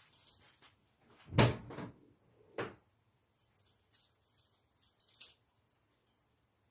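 A heavy thump about a second and a half in, a smaller knock a second later, then faint scattered clicks and rattles; no engine is running.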